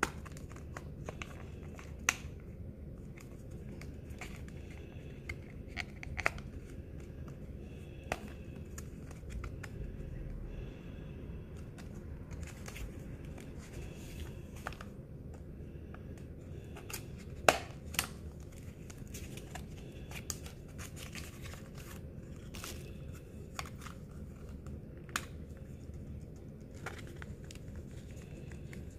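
Fingers and fingernails picking at and peeling the cellophane shrink-wrap off a small plastic eyeshadow palette: scattered crinkles and sharp little clicks, the loudest a bit past halfway, over a low steady room hum.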